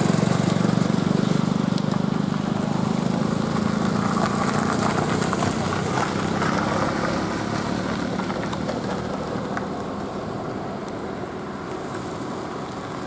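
Small pickup truck's engine running as it pulls away, its low engine note fading gradually as the truck moves off into the distance.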